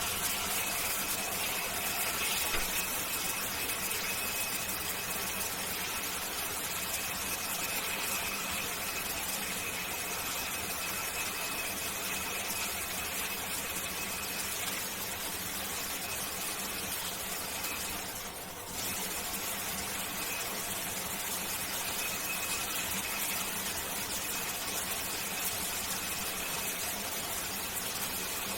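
Shower spray running steadily, a constant hiss of falling water with a faint high steady tone over it. The level drops briefly about two-thirds of the way through.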